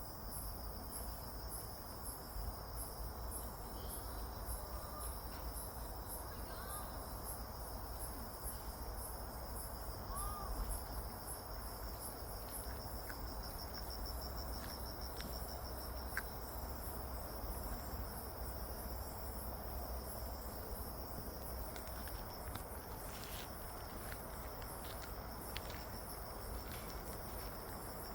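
Crickets and other insects chirping in a steady, rapidly pulsing high-pitched chorus over a low background rumble, with a few faint short chirps and ticks.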